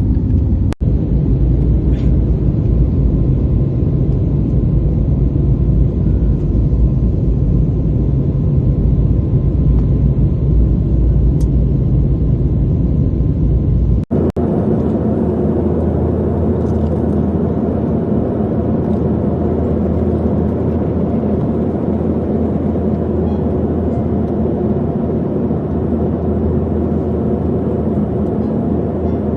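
Steady cabin rumble of an airliner in flight, heard from inside the passenger cabin. It drops out for an instant about a second in, and about halfway through it changes abruptly to a slightly different, less bassy rumble.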